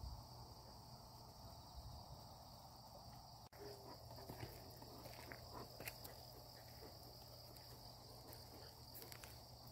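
Faint, steady high chirring of field insects such as crickets, with soft footsteps on a dirt path from about a third of the way in.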